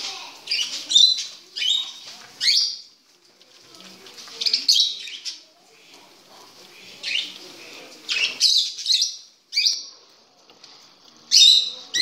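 Small parrots in a caged aviary giving sharp, high-pitched chattering calls in bursts every second or two, with short pauses between.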